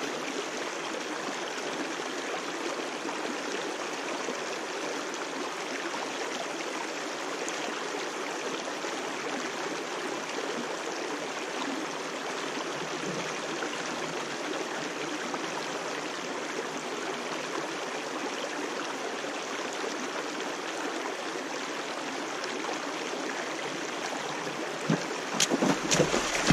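Steady rush of water running over rocks. Near the end come a few sudden knocks and splashes as a brook trout is swung out of the water.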